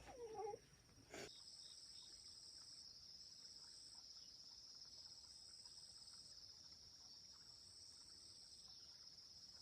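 Faint, steady high-pitched chirring of insects, starting about a second in right after a short click and running on evenly.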